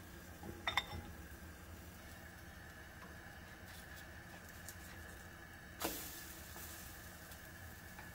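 Cooking utensils clinking a few times against a bowl about a second in, then a single sharper knock about six seconds in that fades out, over a faint steady hum.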